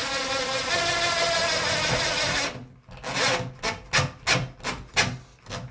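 A DeWALT cordless drill/driver runs steadily for about two and a half seconds, driving a small set screw into a glass shower door's wall mount. It then turns in a quick series of short trigger bursts, about three or four a second, as the screw is eased home; these set screws are prone to snapping.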